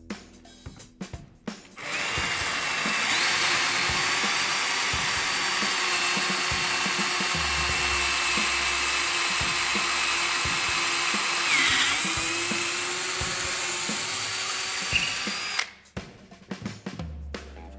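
Electric drill running as a twist bit bores a hole through a wooden box lid, a steady motor whine that starts about two seconds in and stops abruptly near the end. Its pitch dips briefly about two-thirds of the way through as the bit loads up.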